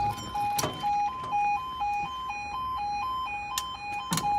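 British level crossing alarm sounding its two-tone yodel, switching between a lower and a higher note about twice a second while the barriers are down. Two sharp knocks, one about half a second in and one near the end.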